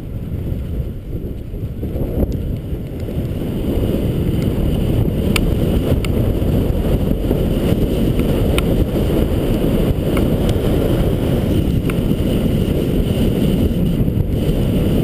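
Wind buffeting a GoPro's microphone while riding down a snow slope, a steady low rush that grows louder over the first few seconds and then holds, with scattered light clicks.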